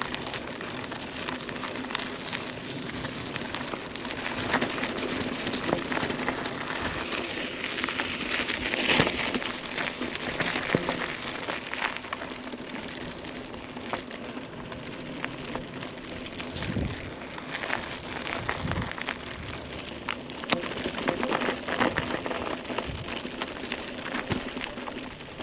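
Mountain bike rolling over a rough, wet dirt track: a steady crackle and hiss from the tyres, with frequent small clicks and rattles.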